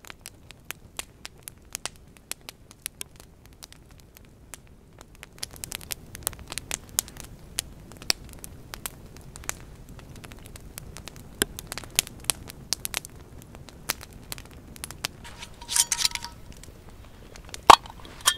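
Wood campfire crackling, with frequent sharp pops and snaps over a low rush of burning that grows from about five seconds in. Near the end there is a single loud knock, the loudest sound.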